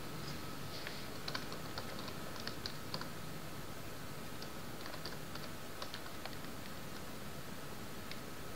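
Computer keyboard typing: irregular keystrokes, busiest in the first few seconds, with another cluster about five to six seconds in, then only a few scattered keys.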